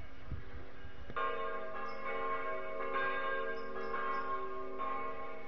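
Bells ringing, starting about a second in, struck roughly once a second, with long overlapping ringing tones. A low thump comes just before them.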